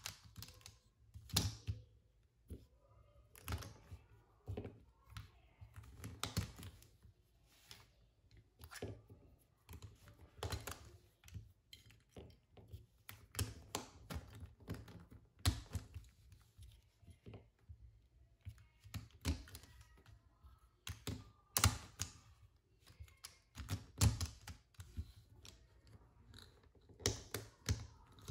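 Plastic pieces of a 3x3 puzzle cube clicking and knocking irregularly as they are handled, fitted and pressed into place while the cube is reassembled.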